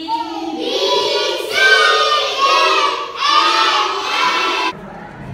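A group of young children's voices chanting together in unison in three or four loud phrases, cutting off suddenly near the end.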